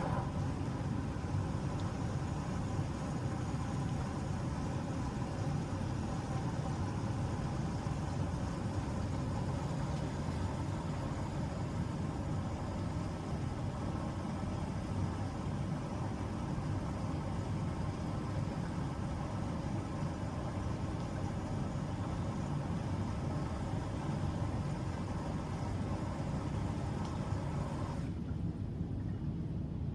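Washing machine running just after a quick wash cycle has been started: a steady low hum with a hiss over it. The hiss cuts off suddenly about two seconds before the end, leaving the hum.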